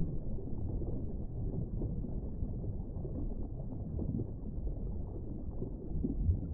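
Steady, low, muffled rumble of underwater ambience, with no tones.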